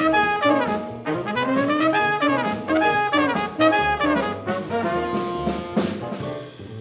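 Jazz quintet playing a swing tune on trumpet, tenor saxophone, piano, double bass and drums, the trumpet carrying the melody in rising and falling phrases over cymbal strokes. The horn phrase ends near the end, leaving the rhythm section quieter.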